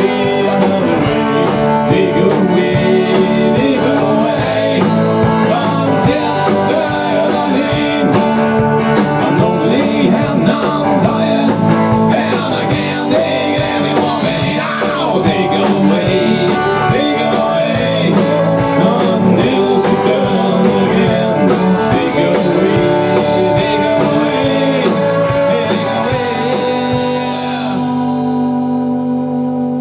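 Rock band playing live: electric guitars, bass guitar and drum kit. Near the end the drums and cymbals stop and a held chord is left ringing.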